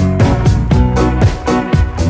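Pop song in an instrumental stretch without singing, with a steady beat of about four strikes a second over bass and sustained synth tones.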